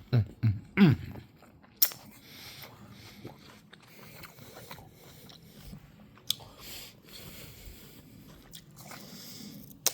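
Close-up chewing and crunching of crunchy food, with sharp bite clicks about two seconds in, about six seconds in and at the very end. It opens with a few short voice-like sounds falling in pitch.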